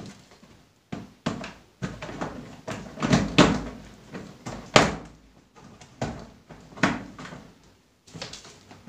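Hard plastic cabinet door being worked against the plastic cabinet frame as it is fitted into place: a string of irregular clacks and knocks, the loudest a little over three and near five seconds in.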